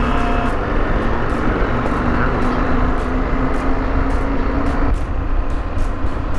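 KTM 890 R motorcycle's parallel-twin engine running at a steady cruise while being ridden, under heavy wind rumble on the microphone. The engine note shifts abruptly about half a second in and again near the end.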